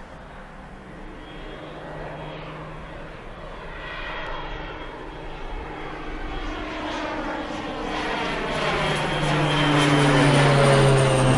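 PZL-130 Orlik turboprop trainer on landing approach: its engine and propeller grow steadily louder as it comes in low and passes overhead near the end, and the pitch drops as it goes by. A high turbine whine runs over the propeller drone.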